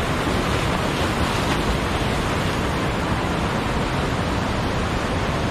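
Waterfall pouring into its pool: a loud, steady rush of falling water.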